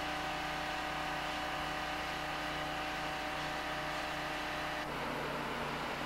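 Steady drone of diesel asphalt paving machinery running at constant speed, first the paver and then a steel-drum roller; the sound changes abruptly about five seconds in.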